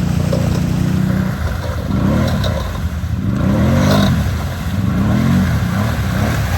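ATV engine running steadily, then revving up and back down several times in quick succession.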